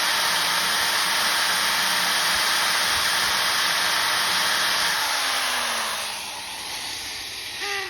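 Electric drill running steadily under load, driving a left-handed drill bit into a broken mower wheel bolt, then released about five seconds in so the motor winds down with a falling whine.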